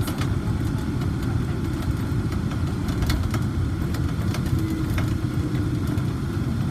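Cabin ride noise of a Von Roll Mk III monorail car running along its guideway: a steady low rumble with a few light clicks.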